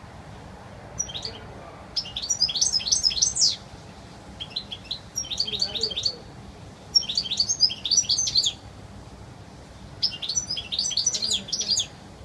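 European goldfinch singing: four phrases of rapid, high twittering notes with pauses of about a second between them, and a short faint phrase just before the first.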